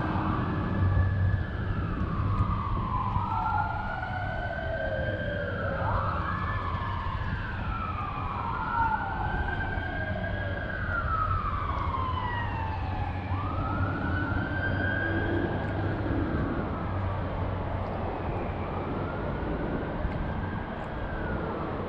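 Emergency vehicle siren wailing, its pitch sweeping slowly up and down several times, over a steady low rumble.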